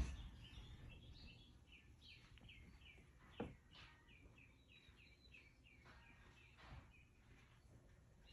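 Birds chirping faintly: a steady run of short, quick chirps repeated over and over, with a brief knock about three and a half seconds in.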